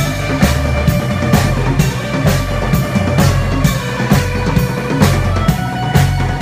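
Live rock band playing an instrumental passage: a drum kit keeps a steady beat with snare hits about twice a second, over electric guitar and bass.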